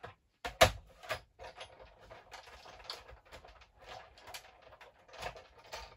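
Cardstock being handled and set down on a craft work surface: a sharp tap about half a second in, then rustling with a few light knocks.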